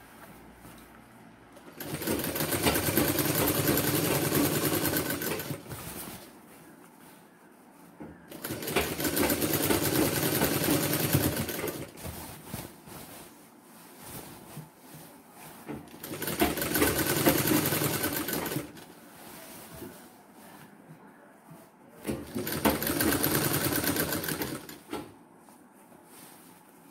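Sewing machine running, stitching a sleeve seam in four runs of about three seconds each, with short quiet pauses between them.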